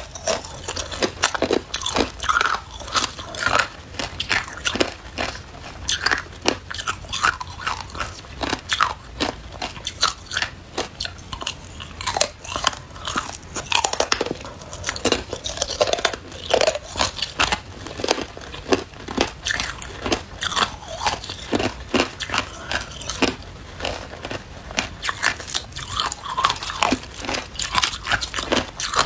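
Thin shards of clear ice being bitten and chewed: a continuous run of crisp crunching and cracking, several crunches a second.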